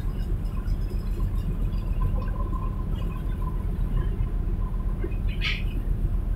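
Fishing boat's engine running with a steady low rumble, heard from on deck, with a brief hiss a little after five seconds in.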